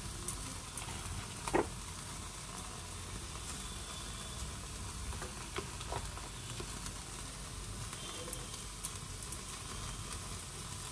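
Butter-basted chicken kebabs sizzling over an open gas flame, a steady sizzle with a few sharp crackles and pops, the loudest about a second and a half in.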